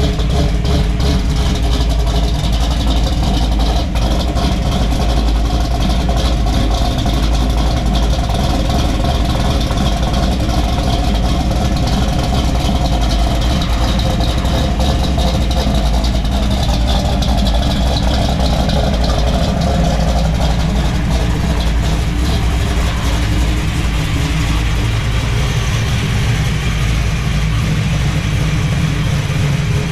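Classic car's custom exhaust running steadily under way, a deep rumble whose pitch rises and falls slowly with engine speed.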